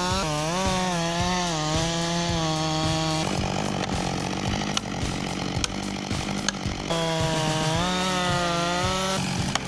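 Chainsaw running with its engine pitch rising and falling as the throttle is worked. For a few seconds in the middle the sound turns rougher and noisier, as when the chain is biting into wood.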